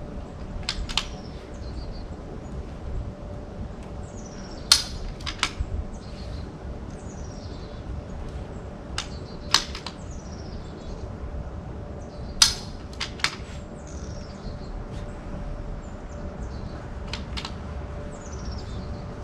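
.22 rimfire rifle fired three times, about five and three seconds apart, during a timed precision match stage. Quieter metallic clicks follow the shots and fall between them: the rifle being worked and the scope dialed between shots.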